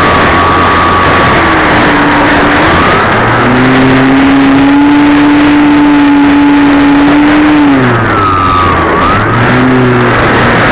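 Electric motor and propeller of a Multiplex Easy Star II RC plane, recorded on board: the whine of its E-Flite Park 450 motor and APC 7x5e prop rises about three and a half seconds in and holds steady for about four seconds. It drops away near eight seconds and climbs again, over a steady rush of air noise.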